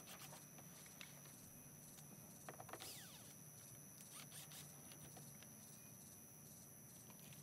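Near silence: faint background hiss with a faint steady high-pitched tone and a few light clicks.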